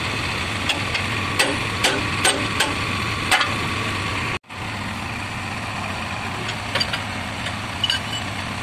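JCB backhoe loader engine idling steadily while steel pins on the bucket linkage are struck with a hammer, sharp metal knocks, about six in the first half and a couple more near the end. The sound drops out for an instant about halfway.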